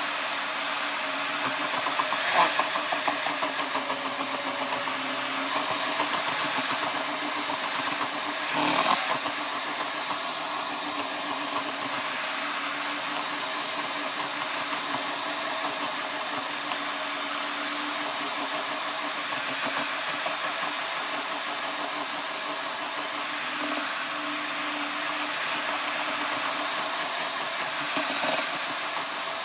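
Handheld electric mixer running steadily with a thin high whine, its beaters churning cream that has broken into butter grains and buttermilk. Twice the beaters knock sharply against the steel bowl.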